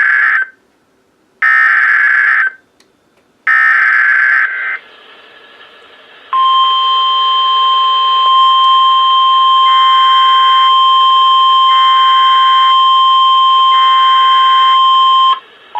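NOAA Weather Radio Emergency Alert System tones. First come three bursts of SAME digital header data, each about a second long and a second apart. Then, after a short pause, the steady 1050 Hz warning alarm tone plays for about nine seconds, announcing a new warning.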